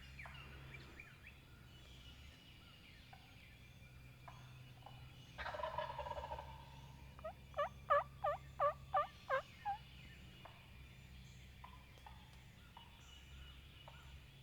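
Wild turkey gobbling once about five seconds in, a short rattling burst, followed by a run of about eight evenly spaced yelps.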